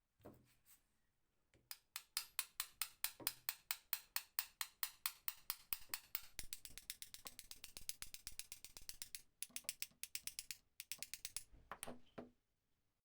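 Gears of a restored two-speed hand drill clicking rapidly as it is cranked, the clicks evenly spaced at first and then coming faster and denser about halfway in. The cranking pauses briefly and resumes in a few short runs near the end.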